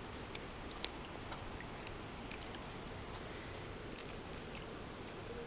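Sharp clicks and small handling noises as a small trout is unhooked with pliers at the water's edge, the two loudest clicks within the first second, then a few fainter ticks.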